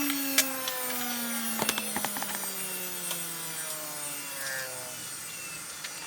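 Electric grinder coasting down after being switched off, its hum falling steadily in pitch and fading, with scattered light ticks and clicks of metal contact.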